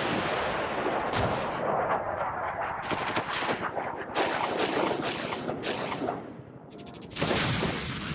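Intro sound effects: a dense run of sharp cracks and quick rattling bursts like rapid gunfire, ending in a loud burst about seven seconds in that dies away.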